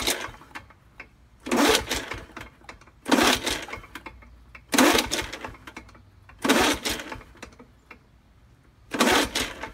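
Recoil starter on an old Tecumseh two-stroke push-mower engine being pulled hard five times, about one pull every second and a half to two seconds, each pull a short loud whirring spin of the engine. The engine cranks over but does not fire, not even a sputter, despite a shot of contact cleaner in the intake as starting fluid.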